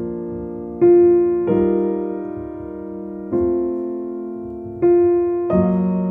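Bösendorfer 280 VC Vienna Concert Grand piano played solo: slow chords and notes struck every second or two, each left to ring and fade before the next.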